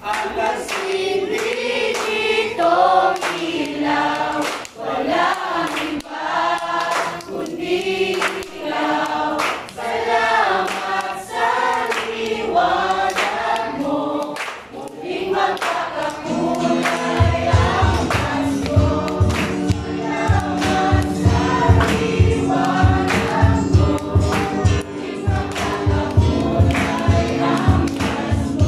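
A small mixed choir, mostly women's voices, singing a Christmas song together over acoustic guitar and keyboard, with hands clapping along. About seventeen seconds in, a steady low drum beat joins.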